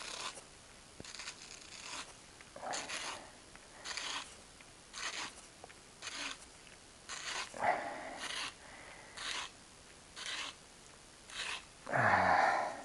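Repair tape being pulled off its roll and wrapped on, in short rasping tearing strokes about one a second, with a louder, longer burst near the end.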